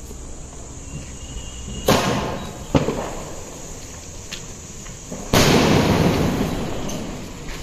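Aerial firework launched and bursting. There is a sharp bang as it goes up about two seconds in, then a small pop, and about five seconds in a loud burst in the sky whose crackle and hiss fade away over a couple of seconds.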